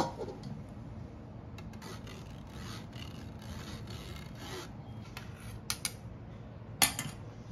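Metal spoon scraping and rubbing against a stainless-steel mesh sieve, pressing egg-and-milk pudding mixture through to strain out the lumps. Two small clicks come a little before the end, and a sharper metal clink near the end.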